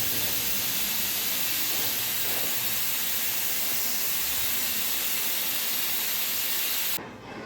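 A steady hiss that cuts off suddenly about seven seconds in.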